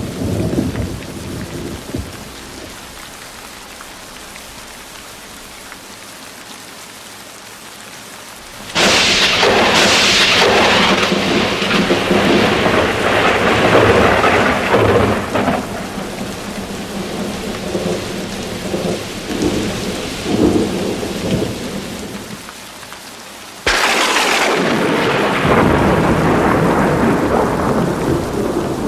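Steady rain with thunder: a rumble dies away in the first two seconds, leaving rain alone, then two sudden loud thunderclaps strike, about nine and about twenty-four seconds in, each rolling on into long rumbling.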